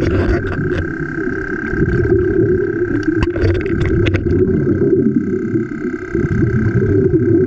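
A motor running steadily, a rough low drone with a constant thin whine above it and scattered clicks.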